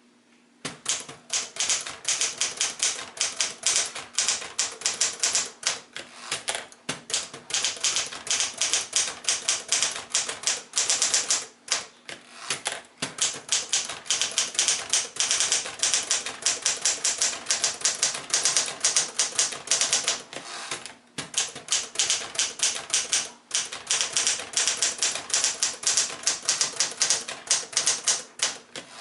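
1963 Smith-Corona Galaxie manual portable typewriter being typed on steadily: a rapid run of sharp keystroke clacks that starts about a second in, with a few brief pauses.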